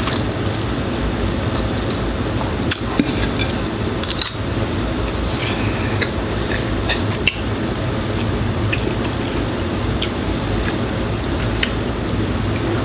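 Eating noodles with a fork from ceramic plates: wet slurping and chewing, with several short clinks of the metal fork on the plates. Underneath is the steady, loud hum of a room air conditioner.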